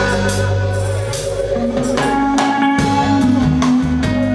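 Live reggae band playing an instrumental passage between sung lines: a sustained bass line under regular drum hits and guitar.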